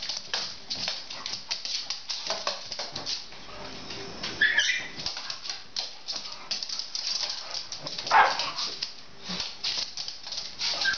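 Dogs play-wrestling on a hard floor: claws clicking and scrabbling, with a short high whine a little before halfway and a louder single bark about eight seconds in.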